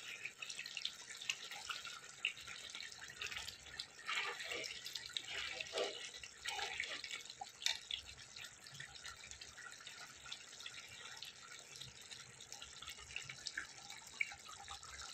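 Dry fish curry bubbling in a metal pan on a gas stove as a steel ladle stirs through it, with a few light clicks of the ladle against the pan.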